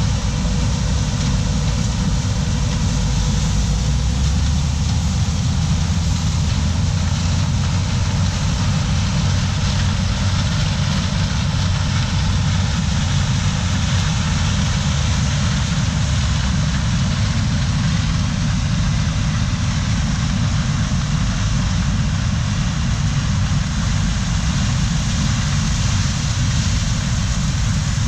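Heavy diesel harvest machinery running steadily: a constant low engine rumble under a steady mechanical rush.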